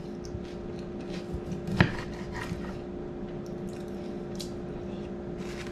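Quiet kitchen handling sounds over a steady hum: a single sharp knock about two seconds in, then a few faint soft clicks and taps as a sliced tomato is picked up and handled over a cutting board.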